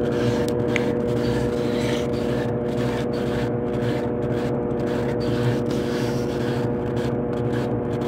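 Brastemp BWK12 top-loading washing machine running with its lid locked and the basket spinning: a steady motor hum over an even whirr.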